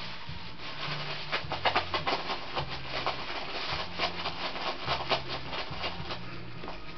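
Scratchy rustling, a quick run of short rubbing strokes in the middle few seconds, over background music with a steady bass line.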